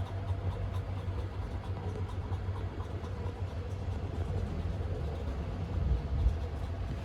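Steady low rumble of a 285-series sleeper train running, heard from inside the car, with a brief low bump about six seconds in.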